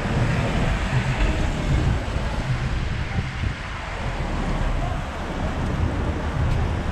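Wind buffeting the microphone in a low, uneven rumble, over the steady hiss of traffic passing on a wet road.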